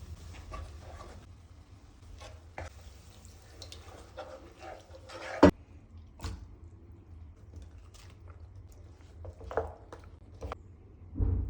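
Scattered knocks and clinks of cookware being handled, with some dripping or liquid sounds, over a steady low hum. A sharp knock about five seconds in is the loudest, and a dull thud comes near the end.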